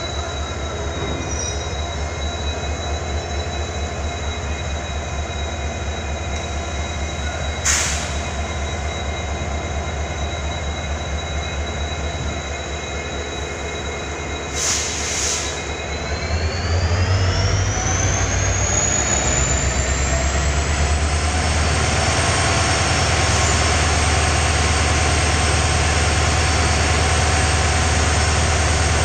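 Diesel locomotive idling with a steady hum and high whine, with two short hisses of air partway through. About halfway, the engine throttles up and gets louder as a whine climbs in pitch over a few seconds, then holds steady.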